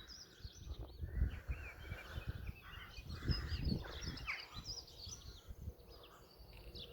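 Garden birds singing in a morning chorus: many quick, high chirps and trills from several birds overlapping. Low, irregular rumbles and thumps run underneath.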